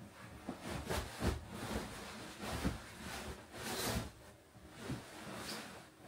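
Someone climbing onto a wooden upper bunk and settling in: a series of irregular knocks and thumps against the bed frame and mattress, mixed with the rustle and swish of bedding, loudest a little before four seconds in.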